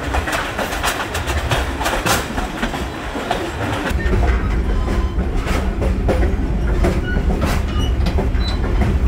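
Moving passenger train: steel wheels clacking over the rail joints while the cars rattle and knock. From about four seconds in, a heavier low rumble comes up through the steel gangway plates between two cars.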